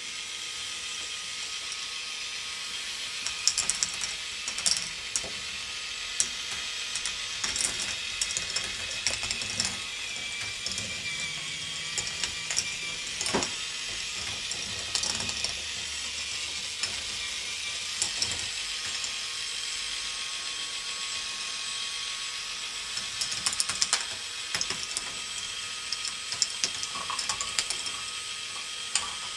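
K'nex ball machine running: the motorised lifts run steadily with a ratcheting click, while plastic balls clack along the tracks in scattered clusters of sharp clicks.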